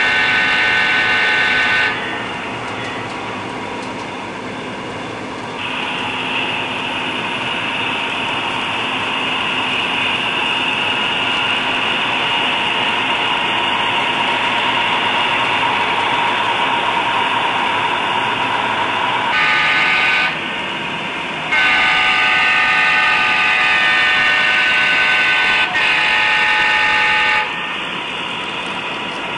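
Sound-equipped HO-scale model diesel locomotive, its DCC sound decoder playing a running diesel engine and the air horn. The horn sounds three times: about two seconds at the start, a short toot near two-thirds of the way in, and a long blast of about six seconds just after.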